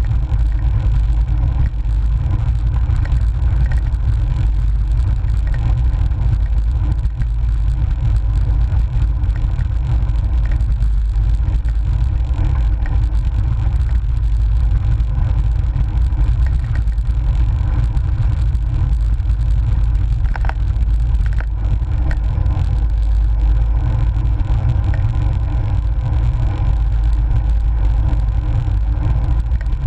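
Wind buffeting and road vibration picked up by a GoPro on a bicycle mount while riding: a loud, steady low rumble.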